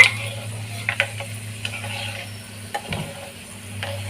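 Ajwain (carom seeds) and garlic cloves frying in hot mustard oil in a small bowl with a light sizzle. A spoon stirring clicks against the bowl now and then, over a steady low hum.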